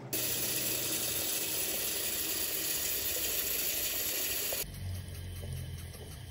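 Tap water running steadily, pouring onto embroidered fabric stretched in a wooden hoop. About four and a half seconds in it suddenly turns quieter and lower as the stream falls into a basin of soapy water.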